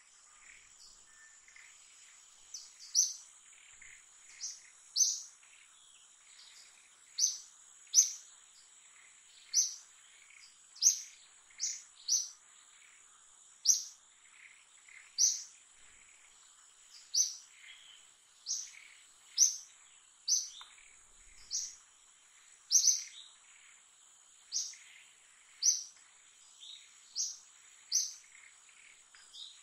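A bird giving short, sharp, high chirps over and over, roughly one a second, over a steady high-pitched insect drone.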